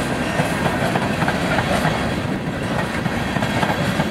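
Empty steel-wheeled coal hopper cars rolling past on the rails: a steady rumble with irregular wheel clicks mixed in.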